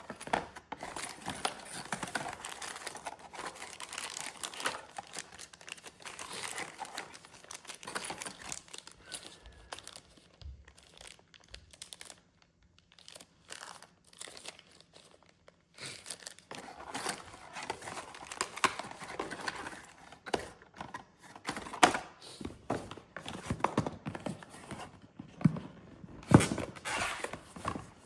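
Packaging being handled and unwrapped: crinkling and rustling with sharp clicks and handling knocks, in two busy spells with a quieter pause in the middle.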